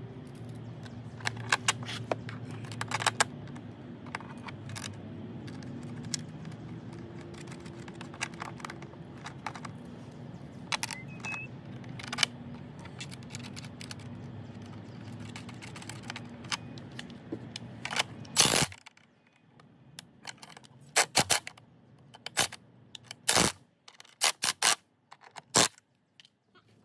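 Small metallic clicks and clinks of cable lugs, nuts and washers being handled and fitted onto battery terminal posts while interconnect cables are wired between lithium batteries. A steady low hum sits underneath and cuts out abruptly about two-thirds of the way through. After that only scattered clicks remain.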